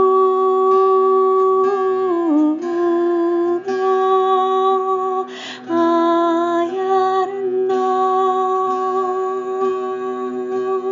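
A woman's voice singing long, wordless held notes that slide between pitches, with a breath about five and a half seconds in, over a steady low drone from a table zither.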